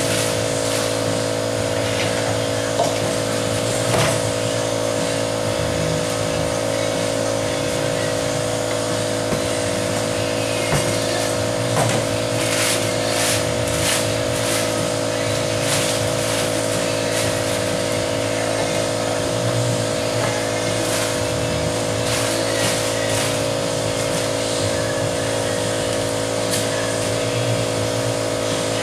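A steady mechanical hum throughout, with plastic wrap crinkling and rustling several times around the middle as it is pulled off a roll of paint protection film.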